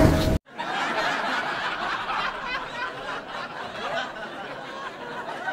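A loud sound cuts off abruptly about half a second in. It is followed by people snickering and chuckling, with bits of voices.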